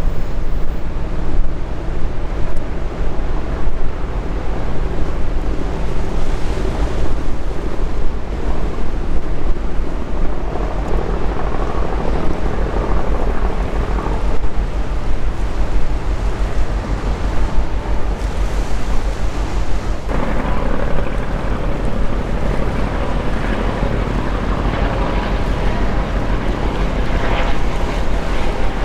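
Strong wind buffeting the microphone in gusts over the wash of the sea. A faint steady hum comes in about two-thirds of the way through.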